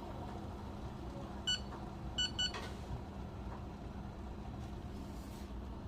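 Three short electronic beeps from a digital device: one beep, then a quick pair about two-thirds of a second later. A steady low hum runs underneath.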